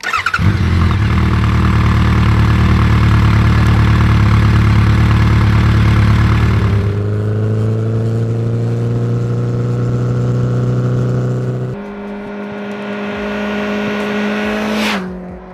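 Honda CB1300 Super Bol d'Or's 1,284 cc four-cylinder engine running loud through its exhaust. It holds a steady note for about seven seconds, then rises slowly in pitch. Around twelve seconds in it changes abruptly and steadies again, with a quick pitch sweep near the end.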